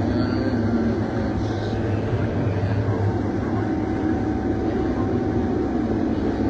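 Combine harvester running steadily while cutting soybeans, heard from inside the cab: a constant machine drone with a low hum underneath.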